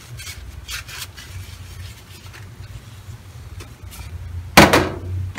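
Soft rubbing and scraping of a tissue wiping spilled sauce from the rim of a ceramic plate, over a low steady hum. About four and a half seconds in, a brief loud noisy burst.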